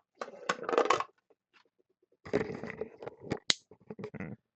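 Crinkling, rustling handling noise with many small clicks, in two bursts, the second ending in a sharp click about three and a half seconds in.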